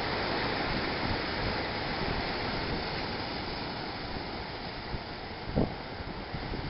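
Ocean surf breaking and washing against a rock jetty: a steady rush of white water that eases a little as it goes on. A single low thump comes about five and a half seconds in.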